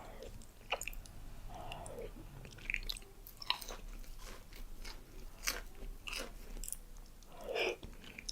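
Close-miked mouth sounds of someone eating: bites and chewing, with irregular wet clicks and crackles.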